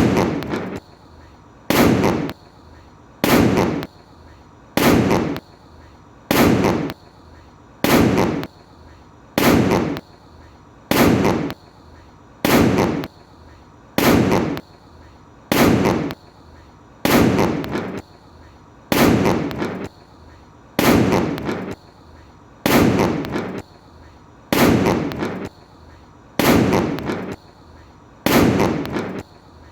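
A large firecracker's bang, heard again and again at even spacing about every second and a half, each sharp crack dying away within half a second.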